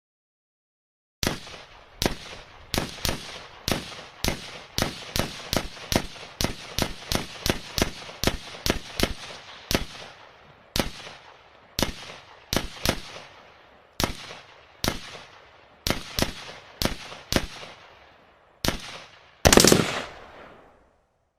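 Pistol gunshots in a long string. They come quickly, two or three a second, then slow to single shots about a second apart, each with a short echoing tail. A louder, longer blast comes near the end.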